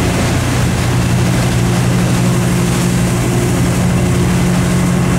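Motorboat engine running steadily at speed while towing, a constant drone with the rush of churning wake water over it.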